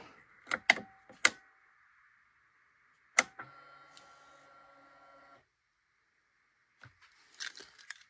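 Honda ADV160 scooter being switched on: a few sharp clicks as the ignition is worked, then a louder click about three seconds in and a steady hum of about two seconds that stops abruptly, the fuel pump priming as the ignition comes on.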